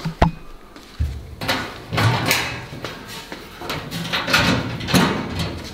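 Red metal wall cabinet doors being opened by hand: a run of clicks, knocks and rattles from the doors, handles and latches.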